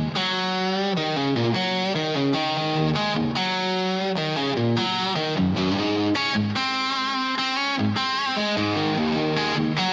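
Rock music instrumental: an electric guitar plays a melodic riff without vocals or drums.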